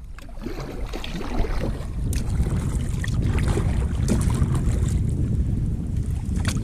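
Wind rumbling on an action camera's microphone out on open water, with a few sharp clicks, one near the end.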